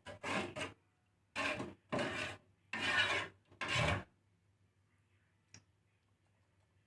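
A spoon scraping and rasping through a bird-seed mix of millet and black glutinous rice as it is stirred, in short strokes about once a second. The stirring stops about four seconds in, leaving a single small click.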